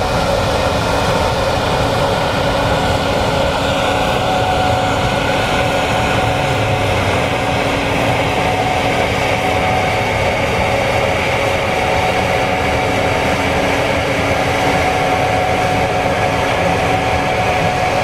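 Gleaner S96 combine harvesting soybeans: a loud, steady drone of engine and threshing machinery with a few steady whining tones, unchanging throughout.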